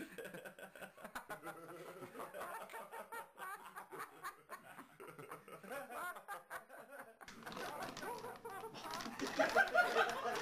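People laughing quietly, getting louder near the end, over the crinkling and rustling of a plastic food bag that a dog has its head stuck inside.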